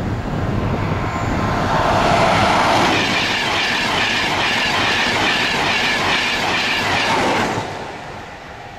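Class 91-hauled InterCity 225 express of Mark 4 coaches passing at speed: a loud rush of wheel and rail noise with a rapid rhythmic clickety-clack of wheels, which falls away sharply near the end as the last coach goes by.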